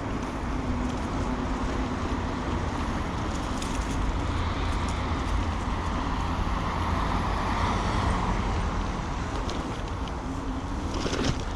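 Steady rumble of wind and tyre noise from a moving bicycle, with a broad swell of traffic noise through the middle as a vehicle goes by, and a sharp knock near the end.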